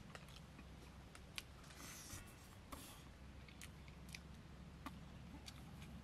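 Faint eating sounds: scattered soft clicks and crackles as rice and fish curry are mixed by hand on a banana leaf and chewed, over a low steady hum.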